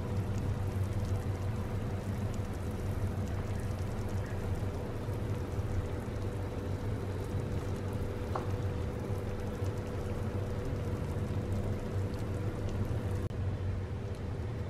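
Steady low hum with an even hiss over it, with a few faint ticks scattered through.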